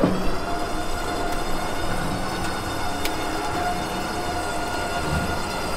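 Winch running under load, pulling a side-by-side up loading ramps onto a trailer: a steady whine that starts suddenly and cuts off near the end.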